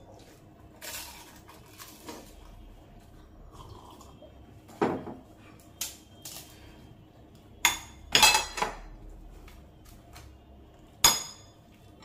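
Ceramic bowls and plates clinking against a spoon and each other as puris are handled at the table: a series of separate sharp clinks with short ringing, the loudest a quick cluster about eight seconds in and a single sharp one near the end.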